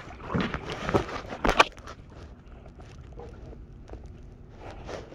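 Paddling a wooden canoe: a few sharp knocks and splashes of paddle strokes in the first two seconds, then a quieter steady wash of water.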